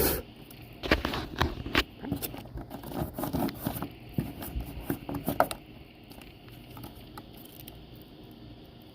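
Hands working the new side marker light and its bulb socket: a quick run of small clicks, taps and scrapes for about five seconds, then only faint handling noise.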